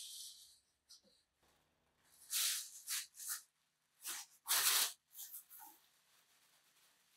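Crinkly paper wrapped around a plant pot rustling in several short bursts as the pot is handled and adjusted on a table, the loudest near the end; a hiss fades out in the first half second.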